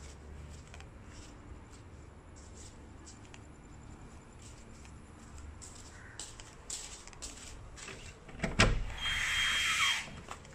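A door being handled: faint ticks and shuffling, then a sharp knock about three-quarters of the way through, followed by about a second of scraping that stops suddenly.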